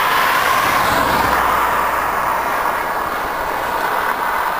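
Steady road and wind noise inside a moving car, with a brief low rumble of thunder from the storm about a second in.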